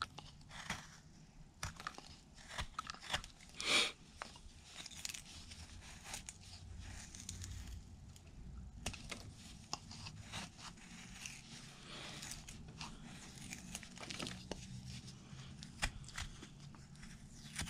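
Carving knife shaving basswood: a series of short, irregular slicing and scraping strokes as the blade cuts shavings from the block's corner. The loudest cut comes about four seconds in.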